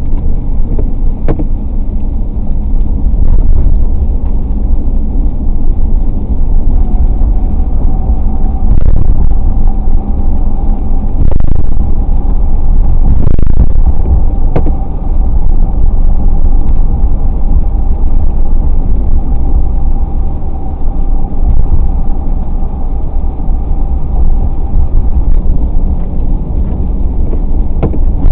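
A car driving along, with a steady low rumble of engine and tyre noise. A faint steady whine comes in after several seconds and fades before the end, and there are a couple of light clicks.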